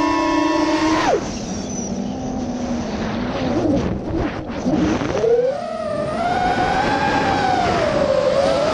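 The brushless motors of a 5-inch FPV racing quadcopter (Lumineer 2206 2350 kv on HQ 5x4.5x3 tri-blade props) whine as heard from the onboard camera. The pitch holds high, drops suddenly about a second in as the throttle comes off, then climbs again about five seconds in and wavers with the throttle.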